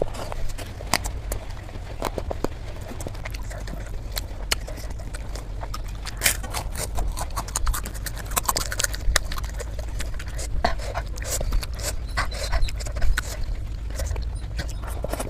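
Irregular light clicks and knocks, some sharper than others, over a steady low hum.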